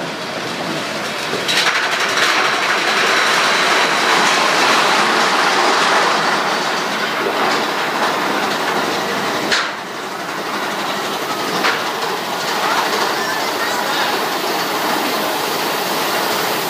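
Big Thunder Mountain Railroad mine-train coaster running along its track, the wheels clattering and rumbling as it travels through a tunnel. The sound grows louder about a second and a half in, with two sharp knocks around the middle.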